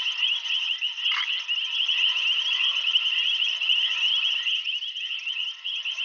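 Dense, steady night chorus of many small calling animals, a high-pitched, rapidly pulsing trill with no break, typical of frogs and insects in the bush after dark.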